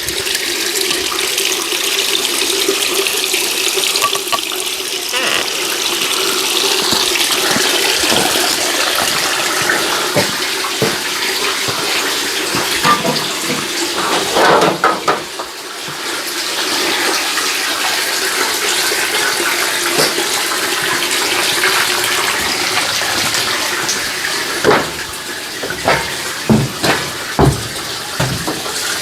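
Tap water running steadily while refrigerator parts are washed under it, with a brief break about halfway and several clunks of the parts being handled near the end.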